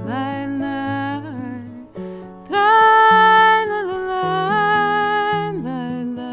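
A woman singing the wordless "tray-lay-lay-lay" refrain over strummed acoustic guitar and digital piano, with a loud held note about halfway through.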